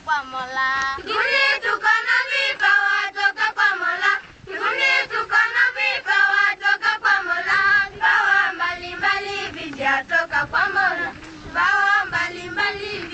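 A group of schoolgirls singing together, with their voices rising and falling in pitch.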